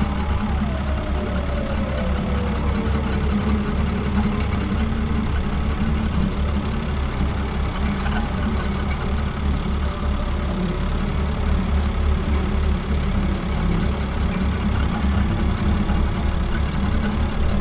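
Engine of a hive-hauling truck fitted with a hydraulic boom loader, running steadily at idle with a low, even drone.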